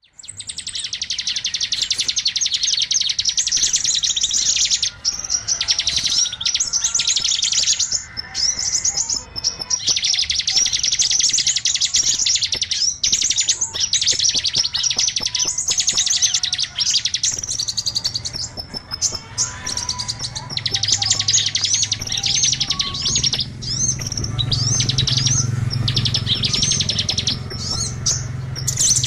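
Small songbirds chirping and twittering in fast, dense high trills, in long runs broken by brief pauses: a bird-trapping lure call for small birds. A low hum comes in during the second half.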